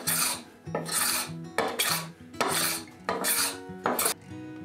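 A hand-tool blade shaving cured epoxy off a hardwood slab desktop: about six quick rasping strokes, each about half a second long, ending about four seconds in. Soft background music runs underneath.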